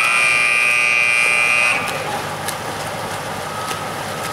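Water polo timing buzzer sounding one loud, steady electronic note for nearly two seconds, then cutting off into the lower background noise of the pool.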